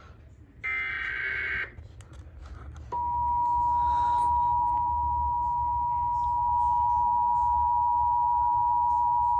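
Emergency Alert System tones: the last of the SAME digital header bursts, a buzzy data burst about a second long, comes first. About three seconds in, after a short gap, the two-tone EAS attention signal (853 and 960 Hz together) starts and holds steady at one pitch.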